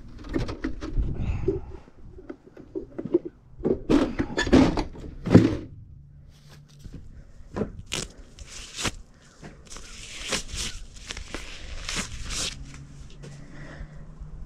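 Tools and gear being handled and stowed in the back of a service truck: a run of knocks and thuds, the loudest a few seconds in, then rustling with sharp clicks.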